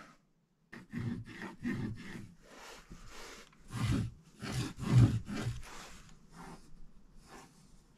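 Pencil scratching marking lines on a wooden block along a square: a run of short scratchy strokes, about three a second, loudest near the middle.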